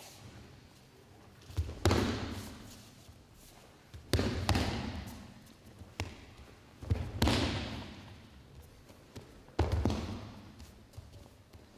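Aikido partners taking breakfalls on tatami mats: four heavy slaps and thuds about two to three seconds apart, each trailing off over a second or so in the large hall.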